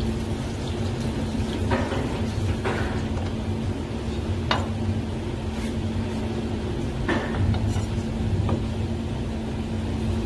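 A few short clinks and knocks of metal bowls and utensils being handled, over a steady low kitchen hum.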